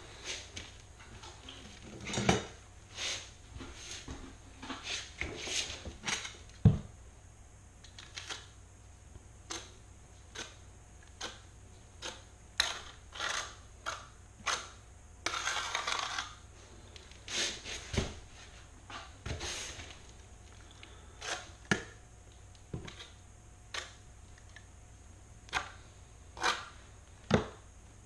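Irregular taps, clicks and clinks of a Kerdi-Line stainless steel linear drain and tools being handled and pressed into thinset, with a brief scraping stretch about fifteen seconds in.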